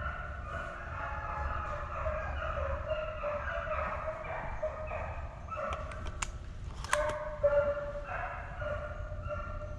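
A pack of deer hounds baying in full cry on a deer's trail, several voices overlapping in long, drawn-out bawls. A few sharp clicks come about six to seven seconds in.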